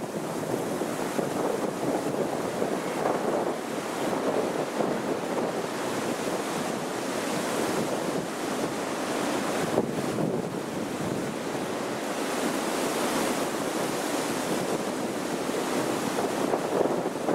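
Strong gusting wind rushing in swells that rise and fall, buffeting the microphone.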